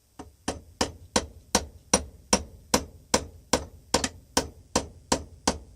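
Small hammer tapping a steel spring pin into a drilled hole in a bench vise screw, a steady run of sharp, ringing metal-on-metal taps, about two and a half a second. The pin is going in but is really tight.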